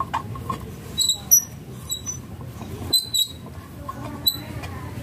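Sharp metal-on-metal clinks, some with a brief high ring, about eight at uneven intervals, as a socket wrench is fitted and worked on the rusty casing bolts of a centrifugal water pump.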